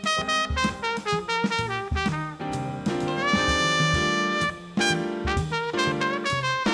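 Instrumental big-band swing music: a brass and saxophone section playing short phrases, with a long held chord near the middle.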